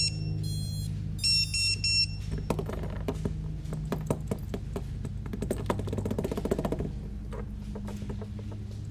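FPV quadcopter's startup beeps on power-up: a short series of pitched tones in the first two seconds, the sign that the ESCs have powered on. Then a run of clicks and knocks as the drone is handled on the work mat.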